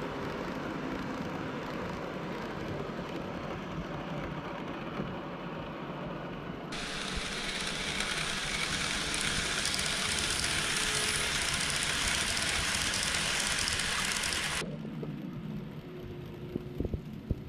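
KATO 117-series N-gauge model train running along layout track: a steady rolling rumble of small wheels on rails with motor hum. A brighter hiss cuts in abruptly about seven seconds in and stops just as abruptly about eight seconds later. A few sharp clicks come near the end.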